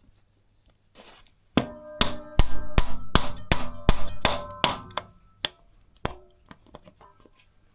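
Hammer blows on a steel tool set in a stuck engine-cover screw, a run of about a dozen ringing metallic strikes, roughly three a second, that starts about a second and a half in and thins to a few lighter taps near the end.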